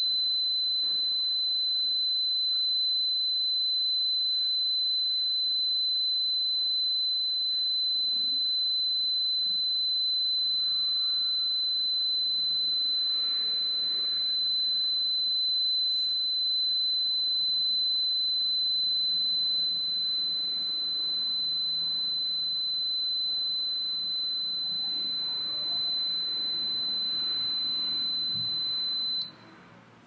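Small piezo buzzer driven straight from a PIC16F1825 countdown timer's 5 V output, sounding one steady high-pitched tone. It cuts off suddenly near the end as the timer's output switches off.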